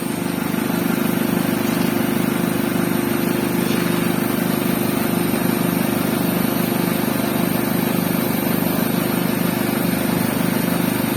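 Car engine idling steadily with an even, low hum.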